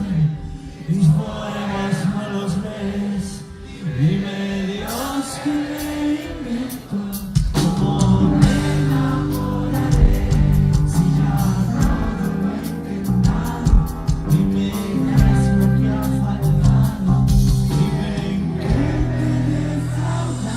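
Rock band playing live with a lead singer: a sparser sung passage for the first seven seconds or so, then the full band with drums comes in and carries on under the vocals.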